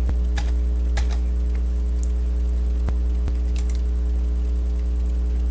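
Steady electrical mains hum, the loudest sound throughout, with a handful of scattered sharp computer keyboard and mouse clicks as a search query is edited and re-run.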